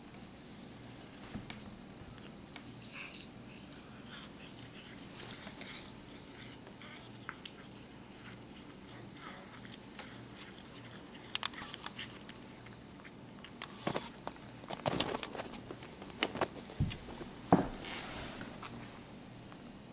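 Cat biting and chewing a blade of grass: scattered soft crunching clicks, with a cluster of louder clicks and rustles in the last few seconds.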